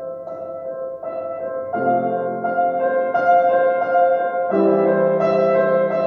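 Grand piano played solo: slow, sustained chords that change every second or so, growing louder about two seconds in.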